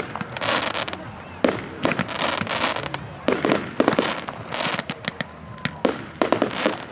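Fireworks going off in quick succession: repeated sharp bangs, several a second, mixed with crackling and hissing bursts and a few faint whistles.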